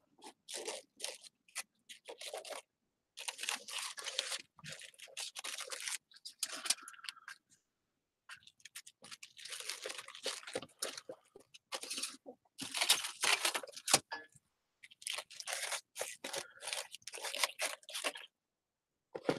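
Paper roses rustling and crunching as they are handled and pressed into place, in irregular bursts with a couple of short pauses.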